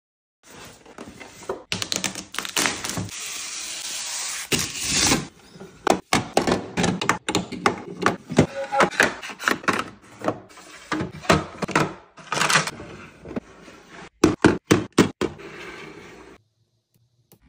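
Quick plastic clicks, taps and knocks as small items are handled and set into white plastic organiser compartments and a plastic lid is opened. A steadier rustling stretch comes about two seconds in.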